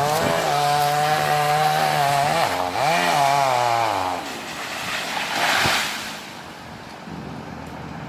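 Chainsaw running at high speed, dipping and revving up again about three seconds in, then winding down about four seconds in. A short rushing noise follows a second or two later.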